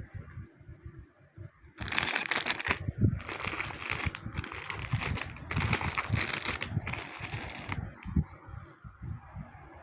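Plastic packaging crinkling as it is handled, in four bursts from about two seconds in until near the end, with light knocks of handling underneath.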